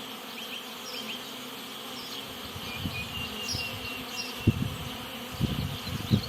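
Many honeybees humming in an apiary, a steady buzz of the colonies at the hives. A few low thumps come in near the end.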